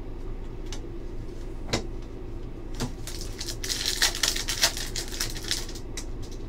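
Trading cards being handled and shuffled in the hands: a few single crisp clicks of card stock, then a quick run of clicking and rustling as the cards are flipped through the stack, a little past the middle.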